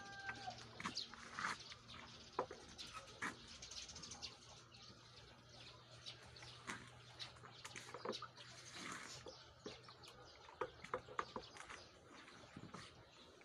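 Faint farmyard ambience: a rooster's crow trails off in the first half-second, then small birds chirp on and off with scattered light ticks over a faint low hum.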